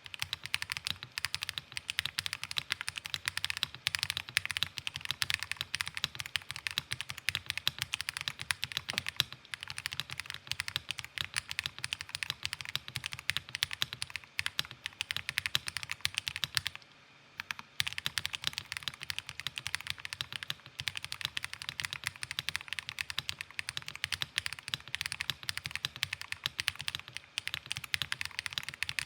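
Continuous typing on a Monsgeek M1 V5 TMR keyboard fitted with Owlabs Ti HE magnetic switches and GMK doubleshot ABS keycaps: a dense, even run of keystrokes with a brief pause about seventeen seconds in.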